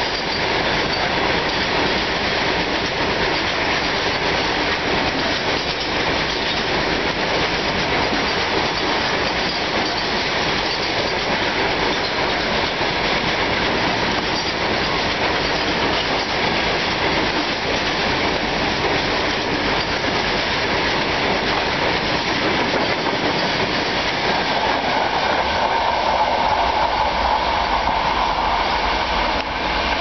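A long rake of BCNA covered goods wagons of an Indian Railways freight train passing close at speed: a steady rushing clatter of steel wheels over the rail joints. A higher-pitched hum comes in for the last few seconds as the final wagons go by.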